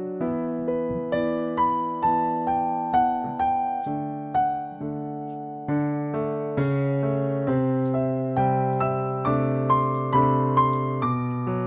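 Background music: a gentle piano melody, single notes struck one after another about two or three a second, each fading after it is played.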